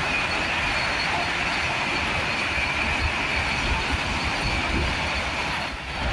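Vande Bharat Express electric train running past at speed: a steady rush and rumble of wheels on the rails, with a thin high-pitched squeal over it, easing a little near the end.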